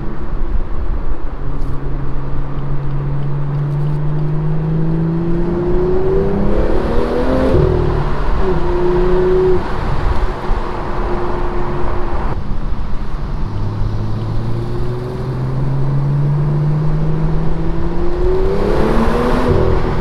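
BMW M2 (F87) N55 turbocharged straight-six with an aftermarket modified exhaust, pulling hard twice: each time the exhaust note climbs steadily for about six seconds and then drops away, first about seven seconds in and again near the end.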